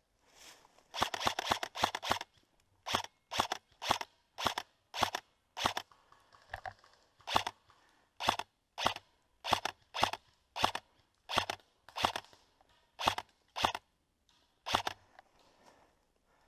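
Airsoft rifle firing single shots: about twenty sharp clacks, a quick string of several about a second in, then one every half second or so.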